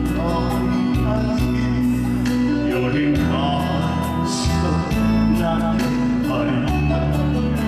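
Amplified Korean trot song: a male voice singing live into a microphone over a backing track with steady bass and keyboard, played through a PA system.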